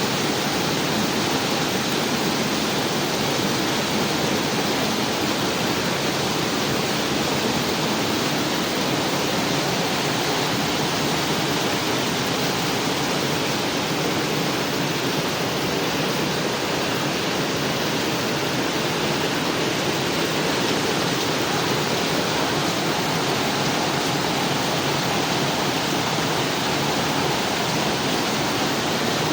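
Heavy rain pouring down: a loud, even hiss with no breaks or single drops standing out.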